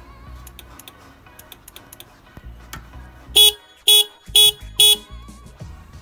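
Scooter's newly wired electric horn tested with four short beeps, about half a second apart, over faint background music.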